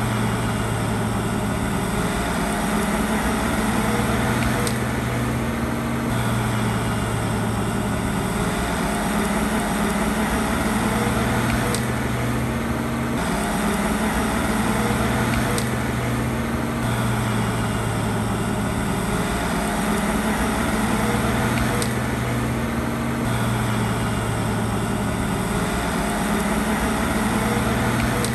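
Heavy diesel earthmoving machinery running steadily, the engine note shifting up and down every few seconds as the load changes.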